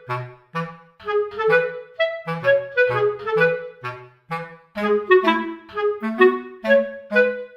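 Background music: a bouncy tune of short staccato notes, about four or five a second, over a low bass line.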